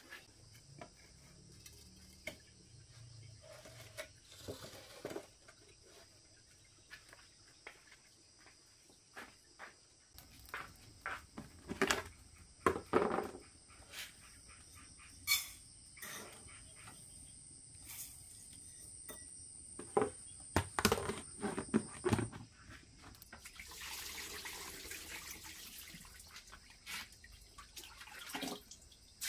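Scattered knocks and clicks of things being handled, over a thin, steady high-pitched tone that stops about two-thirds of the way through. A few seconds of water running come near the end.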